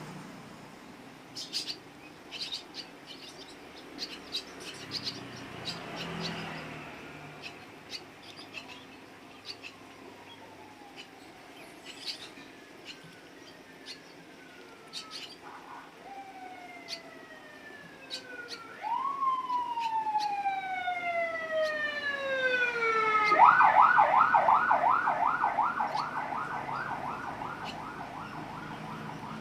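Scattered bird chirps, then a siren sounding: a few slow falling wails from about halfway through, turning near the end into a fast, loud warble.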